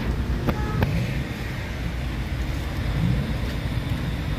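Street traffic: a steady low rumble of cars running along the road, with two short clicks in the first second and a vehicle's engine rising in pitch about three seconds in.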